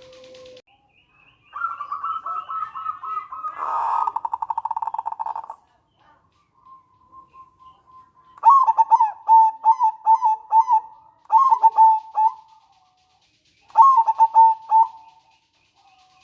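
Local zebra dove (perkutut) calling: a fast rattling trill, then about 8 seconds in its rhythmic cooing song (manggung), given in several short phrases with a last phrase near the end.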